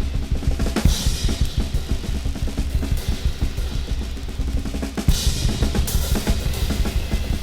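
Drum music: fast, busy drum kit playing with steady bass drum and snare hits over a sustained low bass, with cymbal washes about a second in and again near five seconds.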